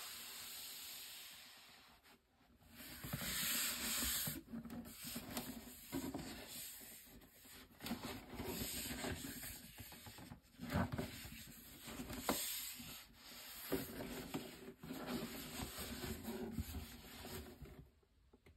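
Hands handling a cardboard Adidas shoebox: irregular rubbing and scraping of the cardboard surface, with a few sharp taps.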